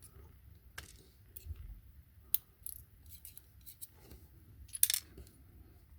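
Small, sharp metallic clicks and taps as a brass padlock's pin-tumbler core is taken apart and its pins and springs handled, with a louder cluster of clicks about five seconds in.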